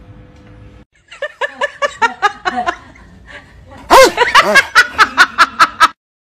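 A faint steady electric-fan hum in the first second, then a person laughing hard in rapid rhythmic 'ha-ha-ha' bursts: a first run, a short pause, then a louder run near the end that stops abruptly.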